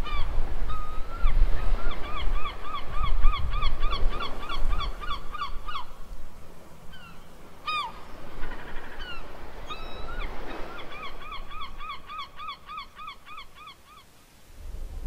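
Bird calls: two long runs of fast, harsh, repeated honking notes, about four a second, over a low rumble. The calls stop near the end.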